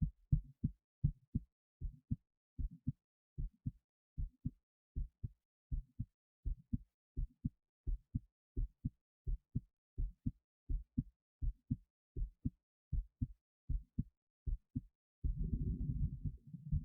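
Human heart sounds picked up at the chest: steady pairs of short, low lub-dub thumps. About fifteen seconds in, a continuous low rushing noise starts and runs under the beats.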